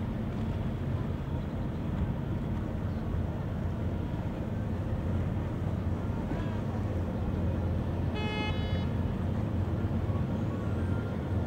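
Low, steady engine rumble of a passing passenger tour boat. About eight seconds in, a single short horn toot sounds, under a second long.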